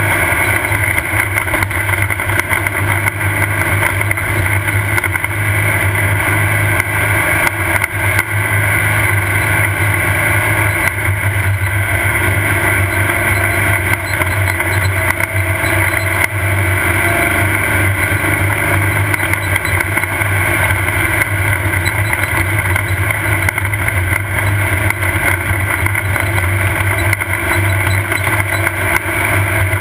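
Off-road race car's engine running steadily, with faint rattles and knocks throughout.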